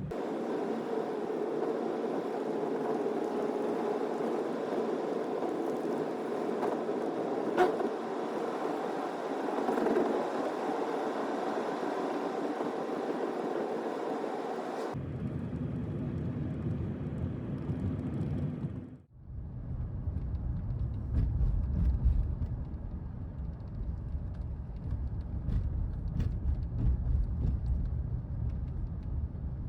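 Steady vehicle driving noise, a rumble of road and engine. About halfway through it changes abruptly to a deeper, lower rumble, dips out briefly a few seconds later, then carries on low.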